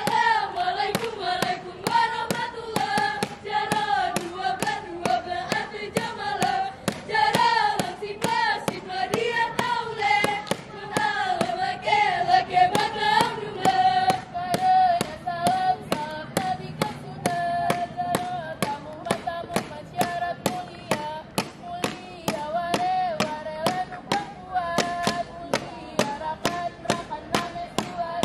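A group of voices singing a melody in two parts over steady, evenly spaced handclaps, about two to three a second.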